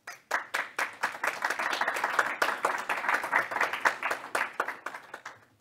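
Audience applauding: dense clapping that builds over the first second and thins out near the end.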